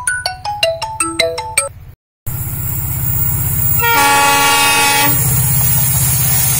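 A short marimba-like tune plays for about two seconds and stops dead. Then an approaching EMD-built WDP4 diesel locomotive is heard, its two-stroke engine giving a low, pulsing rumble, and it sounds one horn blast of about a second near the middle.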